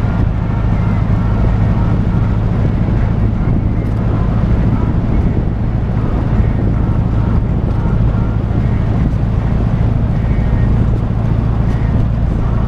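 Trike engine running steadily at an even speed, heard from a camera mounted on the machine.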